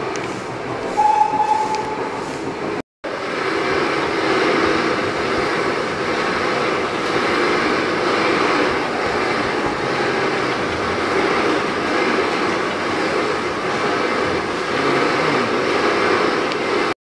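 Stationary steam engines running in an engine hall, giving a steady mechanical running noise with steam hiss. Before them there is a brief steady whistle tone about a second in.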